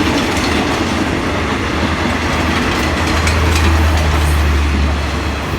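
Passenger train hauled by a Hitachi diesel locomotive running past, a loud steady low rumble with the noise of the wheels on the rails.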